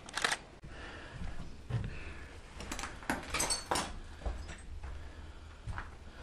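Handling and movement noises: irregular scrapes, clicks and a few low knocks, with footsteps on a debris-covered floor. The sharpest cluster of clicks and scrapes comes between three and four seconds in.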